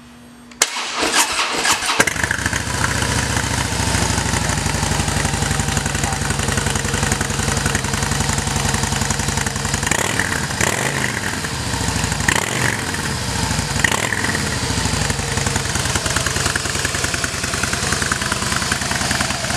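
A 2015 Harley-Davidson Softail Deluxe's 103 cubic inch V-twin cranked by its starter and catching about two seconds in, then idling steadily. It is revved a few times near the middle before dropping back to idle.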